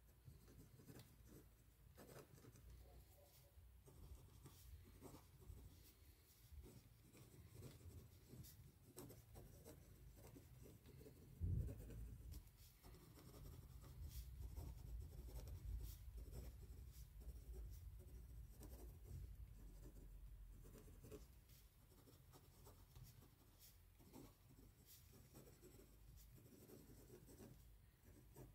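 Faint scratching strokes of handwriting on paper, with a single low thump about 11 seconds in.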